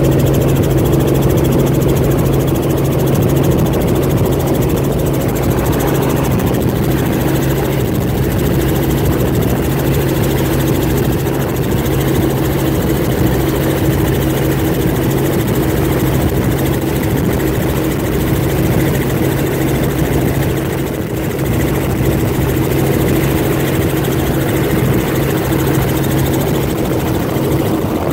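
Helicopter in flight heard from inside its cabin: a loud, steady drone of engine and rotor with a constant low hum.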